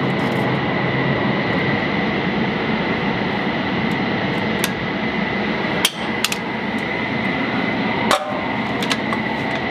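Several sharp metallic clacks of a GAU-21 .50-caliber machine gun's parts being worked by hand, the loudest about six and eight seconds in. They sit over a steady loud mechanical hum with a thin high whine.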